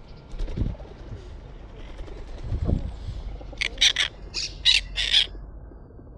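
A parrot squawking: five loud, harsh screeches in quick succession in the second half, after two dull low thuds earlier on.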